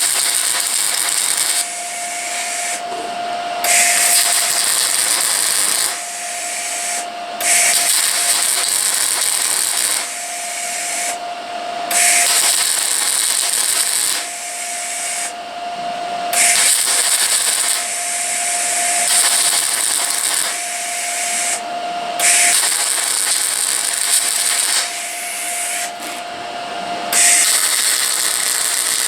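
Welder laying short stitch welds on a truck's body metal: a crackling hiss in runs of a few seconds, broken by brief pauses about every four seconds. A steady whine carries through the pauses.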